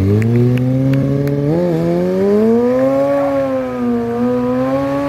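Stunt sportbike's engine held at high revs. Its pitch dips sharply right at the start, blips up about one and a half seconds in, then climbs and wavers with the throttle.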